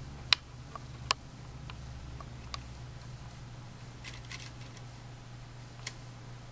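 A few sharp clicks and light taps, the two loudest near the start about a second apart and fainter ones scattered after, over a steady low hum.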